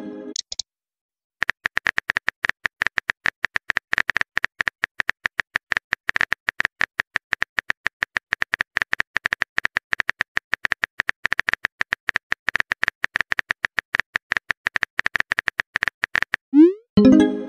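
Texting app's simulated keyboard typing: rapid, even clicks, many per second, as a message is typed out. Near the end a short rising pop-tone sounds as the message is sent.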